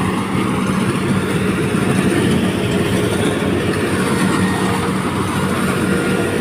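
Rice harvesting machine running steadily under load, its engine hum steady beneath a dense mechanical clatter.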